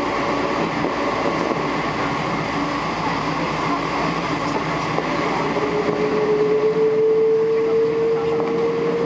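Cabin noise inside a Boeing 777 airliner on the ground, a steady rumbling hum. About five and a half seconds in, a clear whine comes in and slowly rises in pitch.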